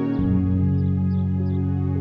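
Calm ambient, new-age style background music: long held chords, with a deeper bass chord coming in just after the start.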